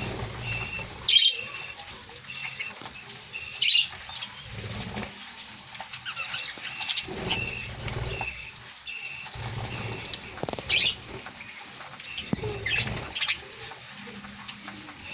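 A flock of budgerigars chirping, with short calls repeating about twice a second, over irregular low fluttering from wingbeats.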